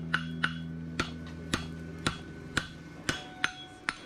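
Farrier's hand hammer striking a red-hot steel horseshoe bar on an anvil, about two blows a second, each blow ringing brightly off the anvil.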